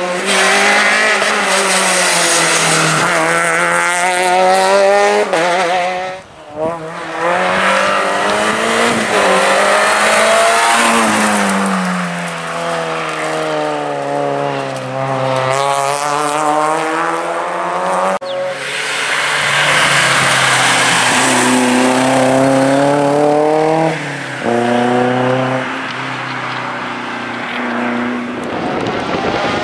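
Rally cars driven hard through bends one after another, engines revving up and falling back again and again as they accelerate, lift and shift gear. The sound breaks off sharply about six seconds in and again about eighteen seconds in as one car gives way to the next.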